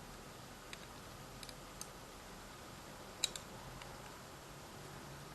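Scattered light clicks and taps of a tool and the phone's plastic parts as the motherboard is pried at inside a Yezz C60 mobile phone, with one sharper click a little past halfway.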